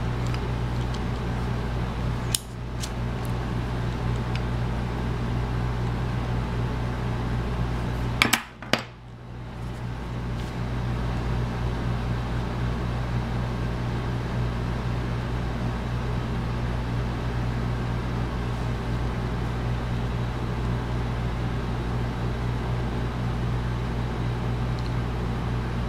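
Steady low hum with a faint hiss, broken by two short clicks, about two and a half and eight seconds in.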